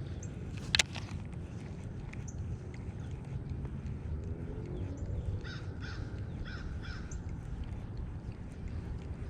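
A crow cawing about five times in quick succession midway through, over a steady low wind rumble. A single sharp click about a second in is the loudest sound.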